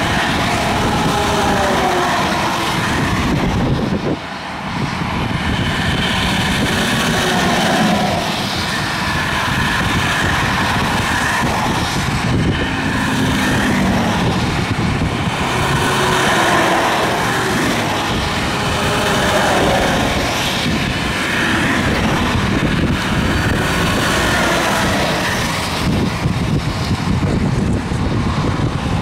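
Highway traffic passing: semi trucks and cars going by, a steady tyre and engine noise that swells and falls with each vehicle, with several falling whines as they pass.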